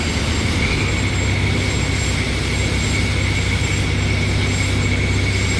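Heavy diesel engine running steadily with a deep drone, with a thin, steady high whine above it.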